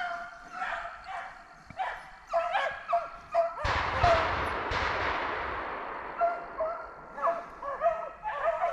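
Deer-drive hunting hounds baying and yelping in short, repeated calls. About three and a half seconds in, a sudden loud burst of noise cuts across them and fades away over about three seconds.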